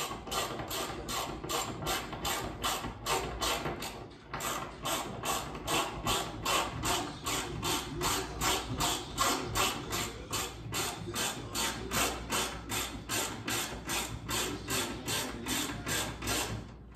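A hand ratchet wrench clicking in quick, even strokes, about three a second, as it drives the fasteners of a TV wall-mount bracket into the wall. There is a brief pause about four seconds in, and the strokes stop just before the end.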